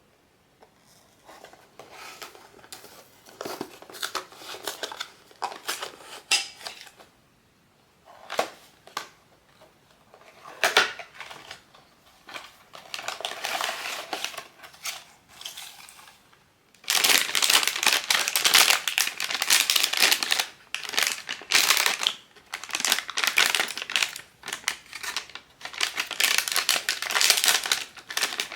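Blind-box packaging being handled and opened by hand. Scattered rustles and taps come first, then from a little past halfway a long spell of loud crinkling and crumpling of the plastic wrapping.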